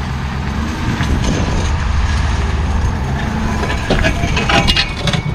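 Pickup truck engine pulling a large fifth-wheel toy hauler slowly, with a low-hanging pipe under the trailer dragging and scraping on the ground; the scraping grows sharper about four seconds in.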